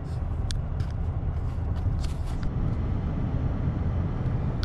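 Steady road and engine rumble inside the cab of a moving rental truck, with a few faint ticks in the first half.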